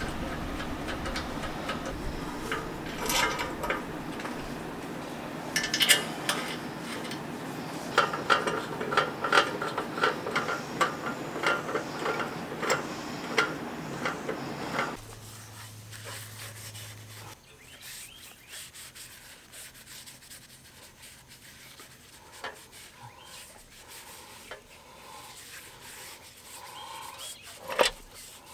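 Screwdriver driving screws into the metal handle brackets of a cast-iron hibachi grill, with clicks and metal-on-metal scraping. About halfway through, the steady background hiss drops away, leaving quieter handling clicks and one sharp knock near the end.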